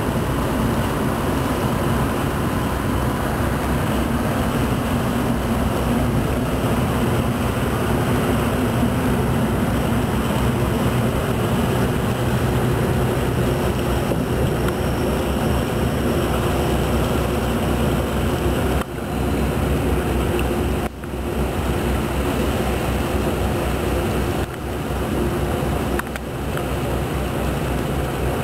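Diesel engine of a motor cargo barge passing close by, a low steady drone with water washing along the hull.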